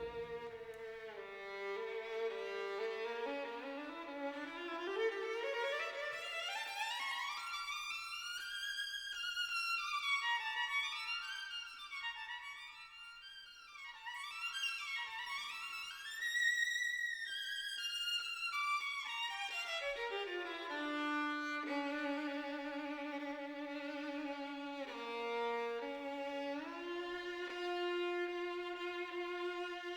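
Solo violin music, slow and sustained: a melody that climbs high, sweeps up and down, then settles into long held low notes.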